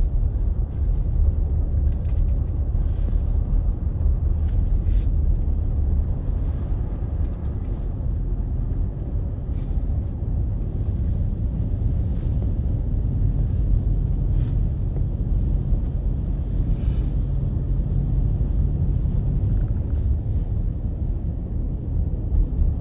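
Steady low rumble of a car running, heard from inside the cabin, with a few faint ticks.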